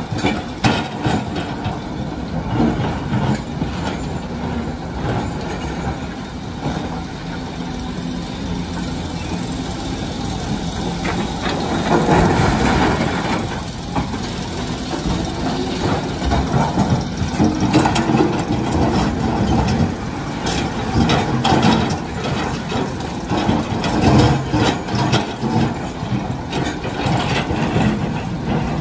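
Large Volvo crawler excavator's diesel engine running under load as its bucket digs through broken rock and loads it into a dump truck, with rocks repeatedly clattering and banging against the steel bucket and truck bed.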